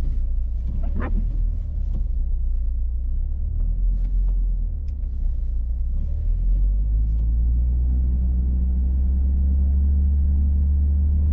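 Steady low rumble of a car's engine and tyres on the road, settling into an even engine drone about seven seconds in.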